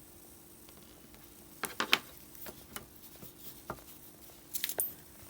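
Irregular sharp clicks and light knocks of small tools and parts being handled on an electronics workbench, loudest in a quick cluster about two seconds in and again near the end, over a faint steady electrical hum.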